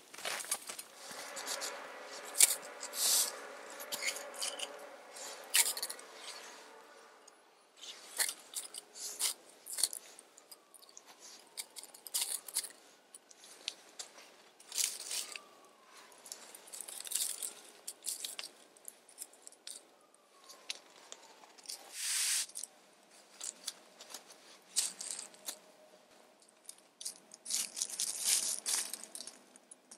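Dry kindling being handled and laid into a fire pit: repeated crackling, snapping and crunching of twigs, dead leaves and split sticks, in short bursts.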